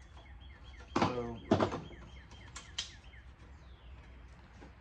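Light clicks and knocks of metal and plastic parts being handled while an electronics unit is taken apart for scrap, with a couple of sharper clicks a little before the three-second mark.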